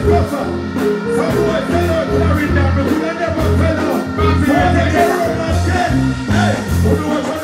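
Live reggae/dancehall band playing through a large stage sound system, with a heavy bass line and a voice singing over it.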